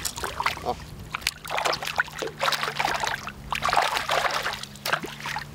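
Water splashing and sloshing in irregular splashes, with a steady low hum starting about a second in.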